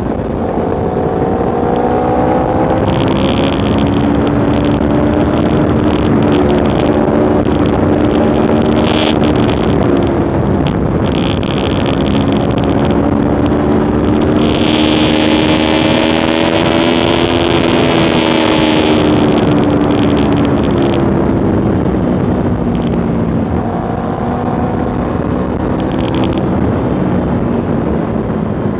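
Aprilia Tuono V4 1100 Factory's V4 engine running under way, its pitch climbing and easing off several times with the throttle. Rushing wind and road noise sit beneath it, with a hiss that swells for a few seconds around the middle, as heard by a camera mounted on the bike.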